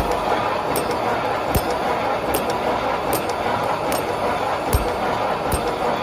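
Automatic wire-mesh welding machine running with a steady mechanical noise and a sharp click about every 0.8 seconds as it cycles. A few low thumps are mixed in.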